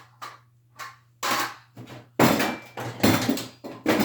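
Tools and small parts clattering and knocking while a toolbox is rummaged through: a few light knocks at first, then louder, busier clattering from about halfway through.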